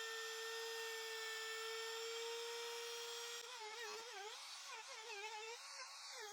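Router with a corner round bit running at a steady high whine, then wavering and dipping in pitch from about three and a half seconds in as the bit cuts the round-over along the pine board's edges, the motor slowing under load and picking up again.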